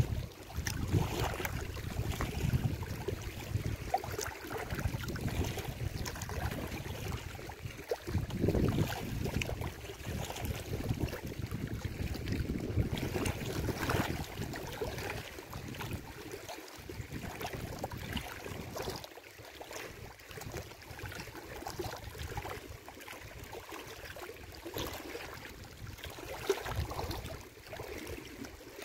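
Wind buffeting the microphone over small waves lapping on a rocky lake shore, gustier in the first two-thirds and easing near the end.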